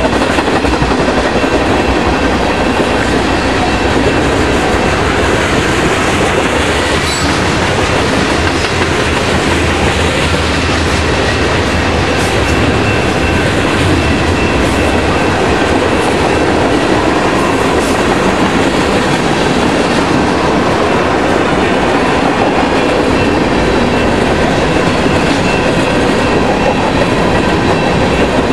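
Freight cars of a mixed manifest train (tank cars and covered hoppers) rolling past at speed: a loud, steady rumble with wheels clattering over the track.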